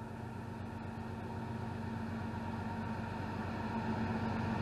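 Diesel freight locomotive approaching, its engine's steady drone growing louder.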